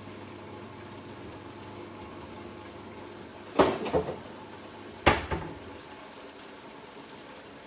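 A pot of pasta water boiling steadily, broken by two sharp clatters of kitchenware about a second and a half apart, as a plastic colander is fetched and handled.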